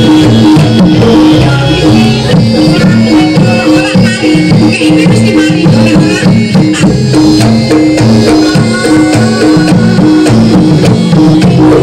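Loud traditional jaranan accompaniment music: drums and pitched percussion play a repeating, steady-beat pattern.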